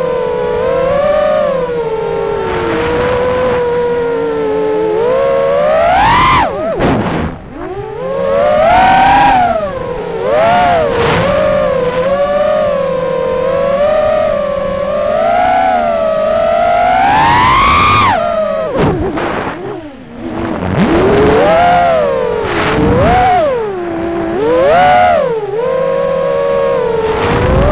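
Armattan Rooster 6-inch FPV quadcopter's motors and propellers whining, the pitch rising and falling with the throttle. The whine drops sharply about seven seconds in, then climbs steadily to a high peak before cutting out briefly near twenty seconds and picking up again.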